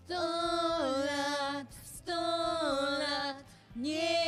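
A man singing a short tune to a ukulele, in three sung phrases of held and sliding notes with brief pauses between them.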